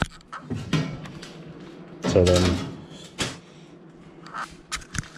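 Scattered knocks and clicks of aluminium parts being handled and set down, with a louder knock about three seconds in.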